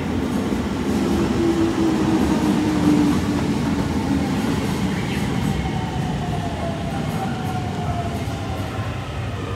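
Toei Shinjuku Line train at the platform, with a loud rumble of wheels and running gear under a motor whine that falls slowly in pitch, as a train does when it brakes into the station.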